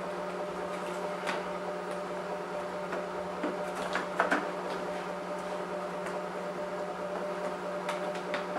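Light clicks and taps of a hex key and hard plastic parts as the levelling adjusters are unscrewed from a BMW E39 headlight housing, over a steady low hum. Two sharper taps come close together about four seconds in.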